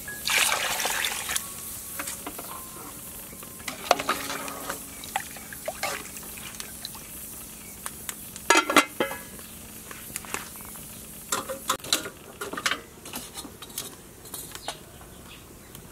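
Water poured into a large pot of simmering soup, then a metal lid clattering down onto the metal pot about eight and a half seconds in, with light clicks and knocks between.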